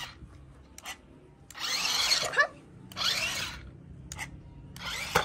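Electric drive motors of a remote-control stunt car whirring in three short bursts as it is driven, pitch sliding up and down within each burst; the first burst lasts about a second, the others are shorter.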